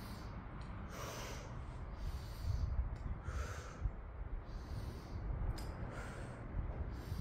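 A woman breathing hard from exertion, with short forceful exhalations about once a second and a low rumble underneath.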